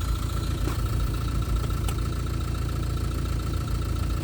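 Renault Kadjar's engine running steadily at idle after a jump-start.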